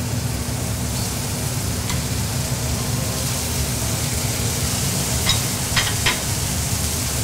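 Venison steaks sizzling steadily as they sear in a hot oiled frying pan, over a steady low hum. A few short clicks of the metal tongs against the pan come about five to six seconds in.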